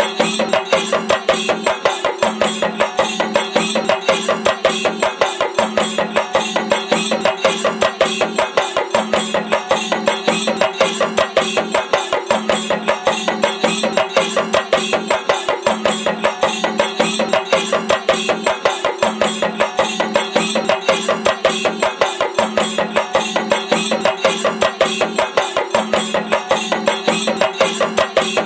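A procession drum group beats shoulder-slung double-headed drums with sticks in a fast, even, unbroken rhythm, over a steady held tone.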